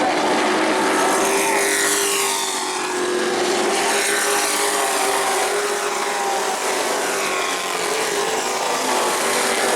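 Engines of several race trucks running at speed on a short oval. Their pitch sweeps up and down as they go past, notably about two and four seconds in.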